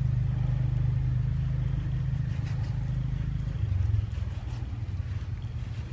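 Steady low engine hum, as from an idling motor, that shifts slightly in pitch about three and a half seconds in.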